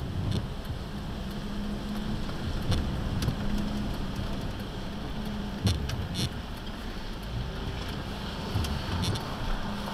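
Vehicle interior noise while driving on rain-wet city streets: a steady low engine hum with tyres hissing on the wet road, and a few sharp clicks and knocks about halfway through and near the end.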